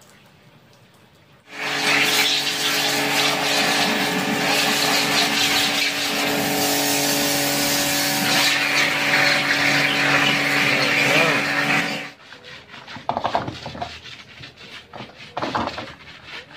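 Pressure washer running, its jet hitting the plastic inner tub of a top-loading washing machine: a steady motor hum under a loud hiss of spraying water. It starts about a second and a half in and cuts off suddenly near twelve seconds, followed by short scraping and rubbing as the tub is scrubbed by hand.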